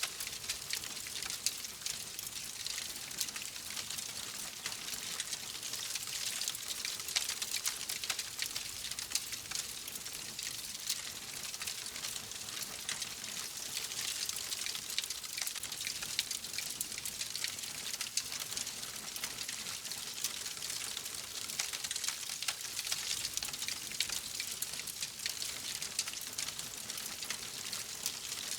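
Wood fire crackling steadily in a fireplace: a dense run of small pops and snaps over a soft hiss.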